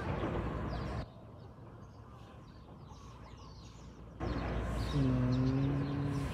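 Small birds chirping over low outdoor rumble. The rumble drops away abruptly about a second in and returns about three seconds later. Near the end a low steady hum holds for about a second and a half.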